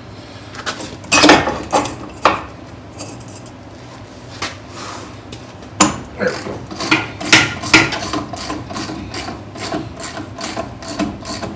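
Hand socket ratchet clicking in quick repeated strokes as it backs off a front shock absorber nut, which is coming off easily because it was lubricated. A few sharp metal knocks of the wrenches being fitted come first, and the ratcheting grows steady and fast about halfway through.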